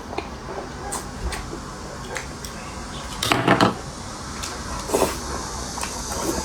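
Close-miked eating sounds of hot-pot food: quiet chewing with a few small clicks, a louder burst about three and a half seconds in and a shorter one near five seconds.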